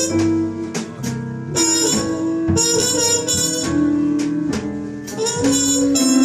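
Live jazz combo playing: a horn carries a melody line of short, shifting notes over bass and drums.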